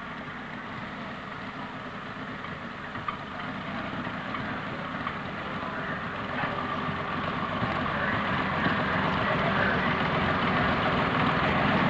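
Engine of a 7,000 lb modified pulling tractor idling and growing gradually louder.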